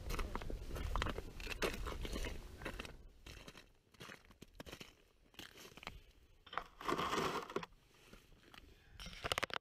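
Crunching and scraping of boots on snowy lake ice, irregular, with a low rumble of wind on the microphone through the first few seconds and a quick run of sharp crunches near the end.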